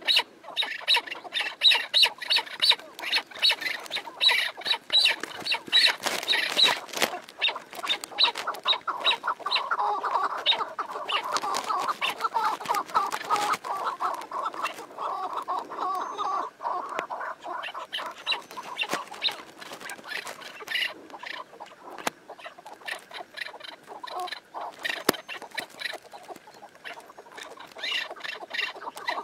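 Partridges calling: quick runs of short clucking notes, several a second, with a denser chattering stretch in the middle.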